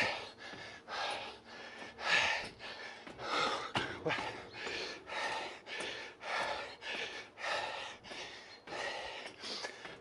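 A person's heavy, fast breathing, short breathy gusts about two a second: out of breath from climbing a long, steep stairway.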